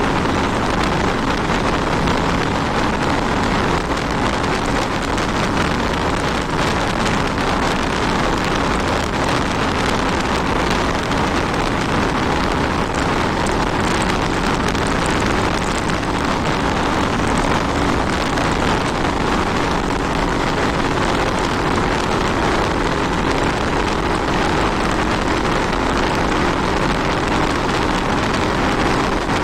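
Riding a Honda 160 motorcycle: steady wind rush over the microphone, with the engine running faintly underneath.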